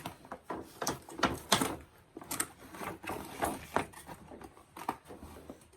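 Irregular clicks, taps and knocks from a doll's box and its packaging being handled and opened.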